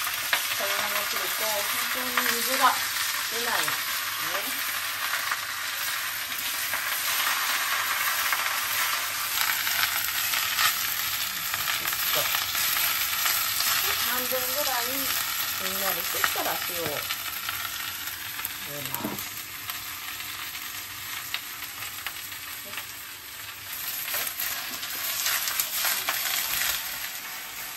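Komatsuna sizzling steadily in a hot frying pan as it is stir-fried and turned with chopsticks, the leaves spun dry beforehand. The sizzle eases somewhat in the second half.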